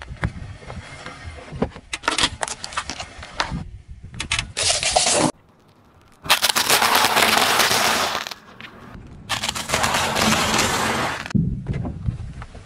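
Car tyre rolling over and crushing wafer ice-cream cones: a loud, dense crackling crunch starting about six seconds in and lasting about two seconds, with a second similar burst a second later. Before it, the tyre rolls over gritty asphalt with scattered small cracks and clicks.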